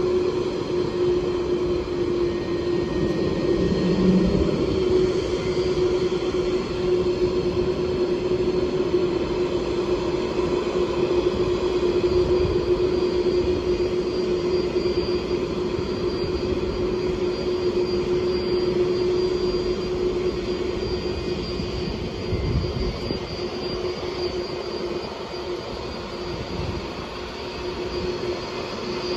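Boeing 747 freighter's jet engines at taxi power: a steady hum with a faint high whine over a noisy rumble, easing off slightly near the end.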